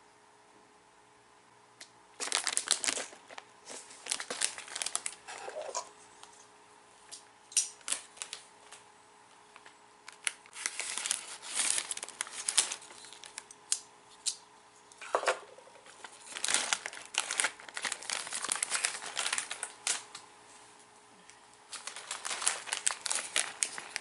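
Plastic snack bag crinkling as it is handled and cut open with scissors: several bouts of rustling full of sharp clicks, starting about two seconds in.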